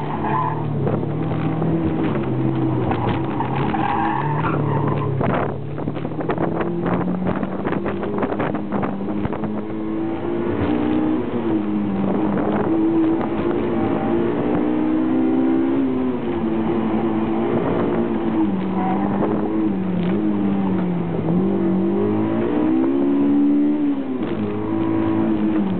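Car engine being driven hard on an autocross course, its pitch climbing and dropping again and again as the car accelerates and slows between turns.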